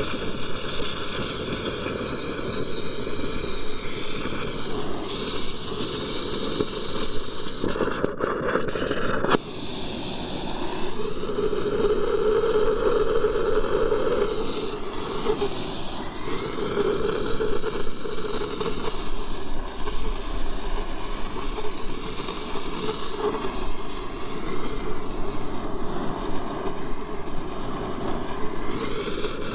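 Oxy-acetylene torch flame hissing steadily and loudly, with a sharp knock about a third of the way in.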